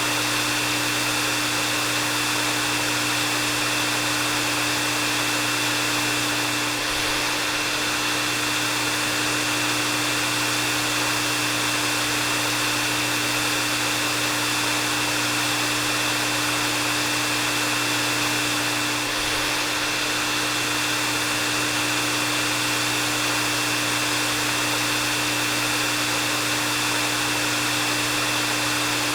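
Hair dryer running steadily: a continuous rush of blown air with a steady motor hum and a thin high whine, dipping slightly in loudness twice.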